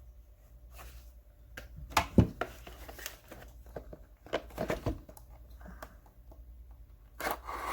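Scattered clicks and knocks with some rustling, from sockets and their packaging being handled and set down.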